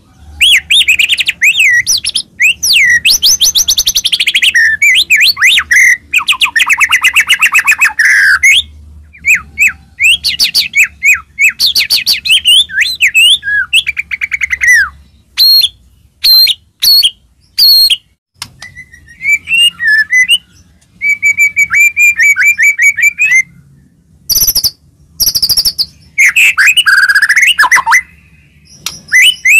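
White-rumped shama (murai batu) in full, loud 'gacor' song: bursts of rapid trills, fast repeated notes and sweeping whistles, separated by short pauses. It is the aggressive, continuous song used as a lure to provoke other shamas into singing.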